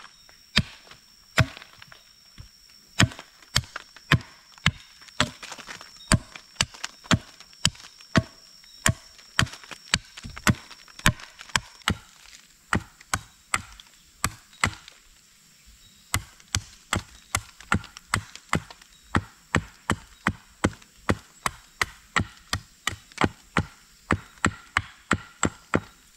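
Small hatchet chopping the end of a wooden pole to a point: a steady run of sharp wooden chops, about two a second, with a short pause about halfway through.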